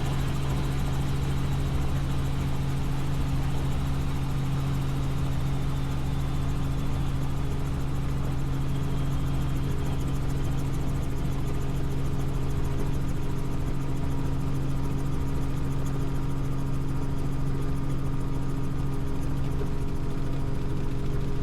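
Helicopter heard from inside the cabin in flight: a steady, even drone of engine and rotor with a constant low hum and a wash of noise, unchanging throughout.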